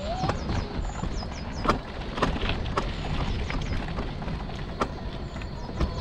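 Electric mobility scooter riding over rough ground. The motor's whine rises in pitch as it picks up speed just at the start, then low rumbling with frequent irregular knocks and rattles from the bumpy path. Birds chirp throughout.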